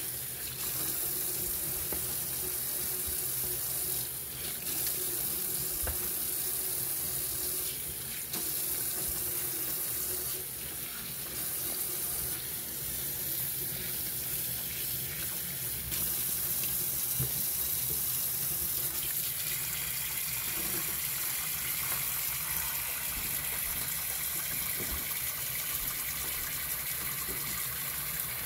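Kitchen tap running steadily into a stainless steel sink, the stream splashing into a bowl of cut oxtails as they are rinsed. The flow gets a little louder about halfway through.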